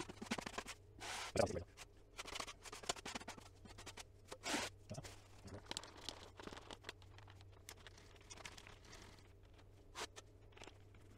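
Hand trowel scraping wet vinyl-tile adhesive across a plywood board in irregular strokes, loudest in the first half. Then quieter handling of the tools, with one click near the end.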